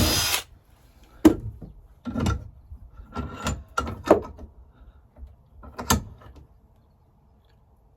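Sharp metallic knocks and clunks from working on a door lock barrel, about six at irregular intervals. A brief loud rush of noise cuts off just after the start.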